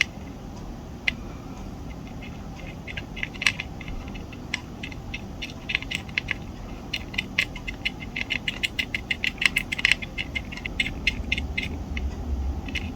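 Irregular small ticks and crackles as a soldering iron is worked over the solder-bridged pins of a surface-mount chip, thickening toward the middle.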